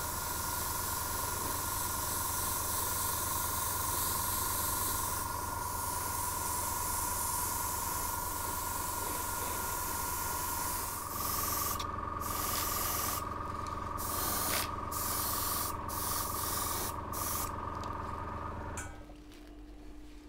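Airbrush spraying paint: a steady hiss for about the first ten seconds, then short bursts with gaps, over the steady hum of the air compressor feeding it. The hum steps up slightly in pitch about halfway and stops near the end.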